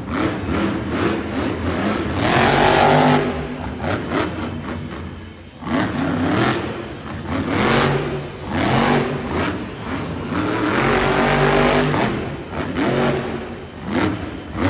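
Monster truck's supercharged V8 revving up and down in repeated bursts, with short drops in between, as the truck drives and turns on dirt.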